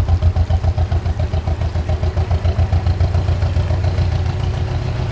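Narrowboat's diesel engine running as the boat passes, a low, fast, even beat.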